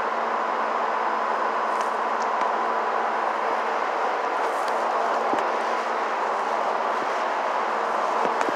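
Steady mechanical hum with a low, constant tone under an even noise, with a few faint clicks.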